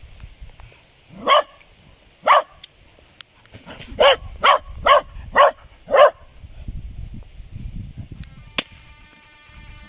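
Hunting dog barking at a badger: seven short barks, two single ones and then a quick run of five. Guitar music comes in near the end.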